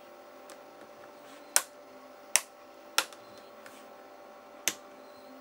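Four sharp clicks, with a few fainter ticks between, as a pry tool works along the edge of a Samsung Galaxy S4's frame.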